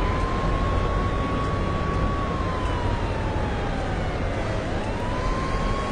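A siren wailing slowly over a steady low rumble of traffic. The tone holds, sinks over about two seconds, then climbs back quickly and holds again.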